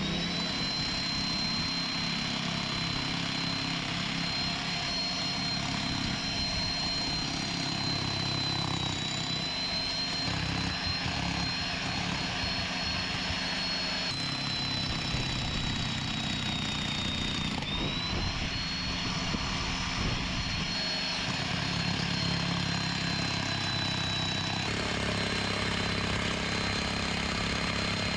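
Jackhammer running steadily while breaking through solid rock. A high motor whine runs over the hammering and sags in pitch briefly twice.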